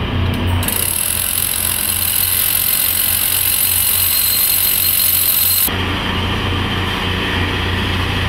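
Powered track drills with long spiral bits running at the rail, a steady motor drone with a high hiss that comes in about a second in and drops away about six seconds in.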